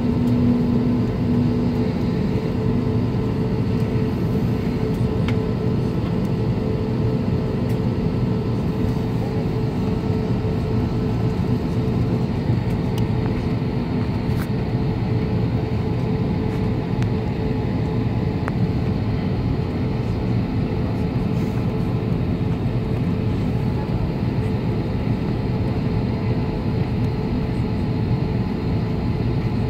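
Steady cabin noise of an Airbus A320neo taxiing: its CFM LEAP-1A engines running at low taxi power with a constant hum and air hiss, heard from inside the passenger cabin.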